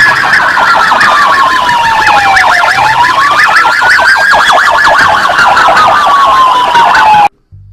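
Police siren: a slow wail rising and falling, overlaid with a fast warble, cutting off abruptly near the end.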